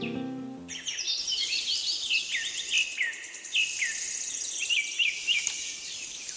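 Small birds chirping in quick, repeated falling notes over a fast, high insect trill and a light hiss. A music track cuts off about half a second in.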